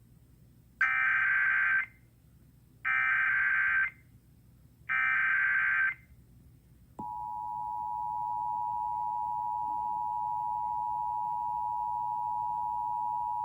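Emergency Alert System broadcast: the SAME header's three one-second bursts of screeching digital data, about a second apart, then the two-tone attention signal starting about seven seconds in and holding steady. This is the opening of an alert, here announcing a tornado warning.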